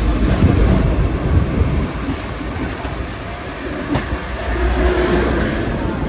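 Hong Kong double-decker electric tram running along its street rails, heard from on board as a steady rumble. One sharp click comes about four seconds in.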